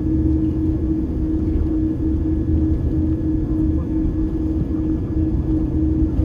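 Jet airliner cabin noise while taxiing: a steady low rumble with a constant hum and a faint high whine.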